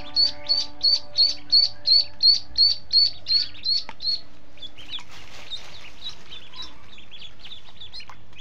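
Ducklings peeping: a quick, regular run of high peeps, about three a second, then fainter and sparser peeps from about five seconds in.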